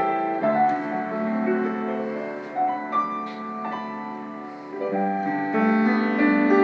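Grand piano played solo: a slow piece of held chords under a melody, going softer midway and swelling back to full chords toward the end.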